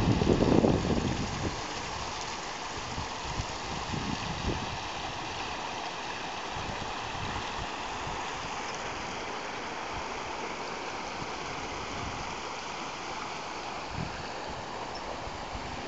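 Water gushing up from a street sinkhole and running across the pavement in a steady rush. A loud low rumble covers it for the first second and a half.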